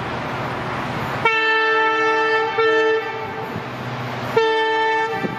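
WDP-4D diesel locomotive sounding its multi-tone horn twice: a long blast of nearly two seconds starting about a second in, then a shorter blast of about a second near the end. A steady rumble of the approaching train runs beneath.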